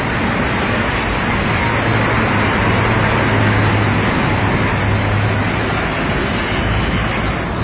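Pressure washer running steadily, its motor humming under a loud, even hiss of water spray.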